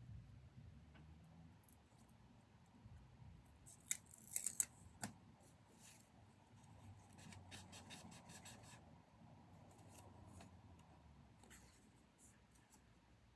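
Faint paper handling: paperback book pages being leafed through and sticky-note tabs peeled off and pressed onto the pages. There is a cluster of sharp crackles about four seconds in, and a quick run of light ticks a few seconds later.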